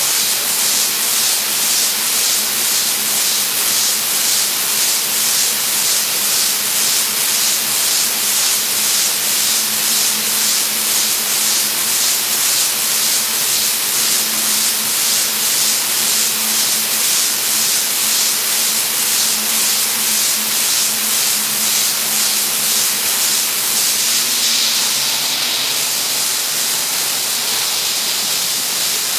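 BOPP adhesive-tape slitting and rewinding machine running at speed: a loud, steady hiss with a regular pulsing in it, over a steady low hum. Near the end the pulsing fades and the hiss drops slightly.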